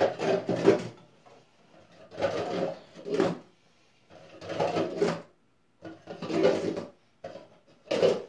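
Red plastic party cups clattering as a pyramid of them is taken apart and the cups are set down one after another on a wooden floor. The clatter comes in short bursts about every second or so.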